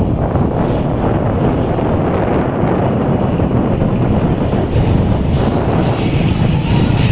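Keeway K-Light 202 motorcycle's V-twin engine running steadily while riding in traffic, with wind rushing over the microphone.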